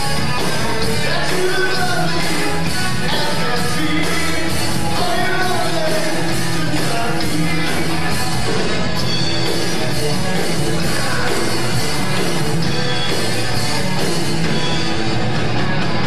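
Live rock band playing through the PA: electric guitars, bass, drum kit and keyboard, steady and loud.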